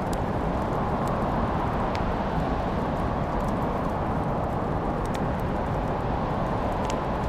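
Wood fire in a fireplace crackling, with a few sharp pops over a steady low rushing noise.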